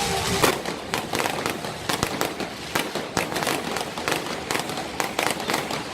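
Fireworks going off in a dense, irregular run of sharp cracks and pops, several a second, with the loudest bang about half a second in. A falling whistle fades out at the very start.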